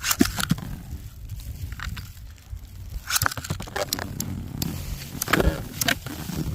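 Irregular clicks, scrapes and crackles in three clusters, near the start, about 3 s in and about 5.5 s in. Under them runs a steady low rumble of wind on the microphone.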